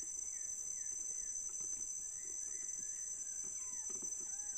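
Steady high-pitched drone of forest insects, with faint short bird chirps over it.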